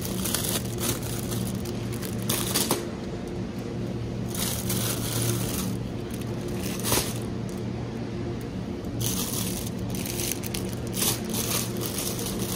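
Steady low hum of supermarket chiller cabinets, with bursts of rustling and scraping every second or two from plastic-wrapped packs and a trolley being handled.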